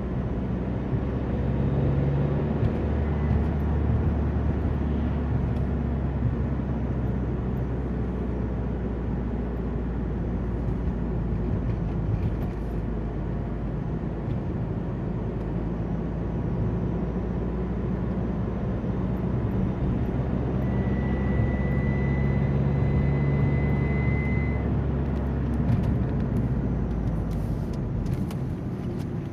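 Alfa Romeo 147 engine running under light acceleration, with a thin high-pitched whistle that comes in about two-thirds of the way through, holds steady for about four seconds, then stops. This is the strange whistle that the car makes when accelerating very slowly.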